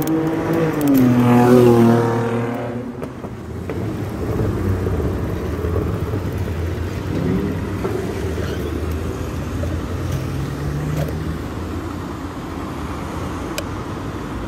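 A motor vehicle passes close by, its engine note falling in pitch as it goes past, loudest about a second and a half in. After that comes a steady low rumble of street traffic, with a fainter vehicle passing about seven seconds in.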